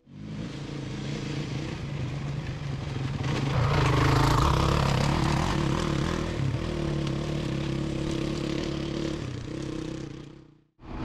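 Motorcycle engine running under way, with wind rushing over the microphone. The engine gets louder about four seconds in and holds steady, then the sound cuts off just before the end.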